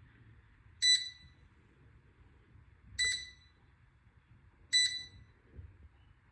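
Air fryer control panel beeping three times as its buttons are pressed to set it: short, identical electronic beeps about two seconds apart.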